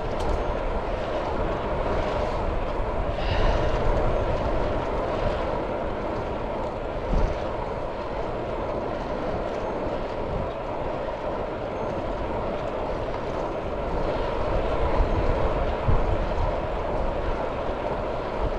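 Wind rushing over an action camera's microphone with road noise from a road bike's tyres on a rough lane: a steady rush with a deep rumble. There are a couple of short thumps, about seven and sixteen seconds in.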